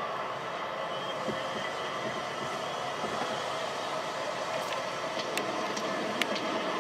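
Stadium crowd cheering at the end of a football game, heard through a television's speakers as a steady roar of noise. A few faint clicks come in the second half.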